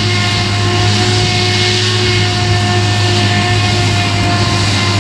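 Claas Jaguar 470 self-propelled forage harvester chopping rye, with the JCB Fastrac 4220 tractor and trailer running alongside. A steady machine drone with a high whine over it.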